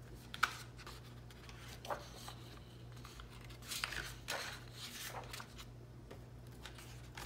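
Paper planner pages being handled and turned: a few faint, scattered rustles and soft flicks of the sheets.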